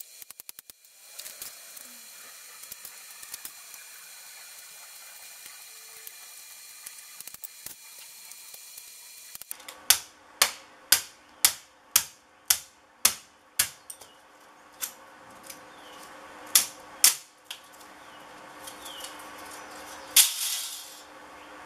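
Claw hammer striking copper transformer windings on a metal plate, stripping the scrap for its copper. It comes as a quick run of sharp metal knocks, about two a second, then a few slower strokes with a loud one near the end. The first half holds only a faint hiss with light clicks.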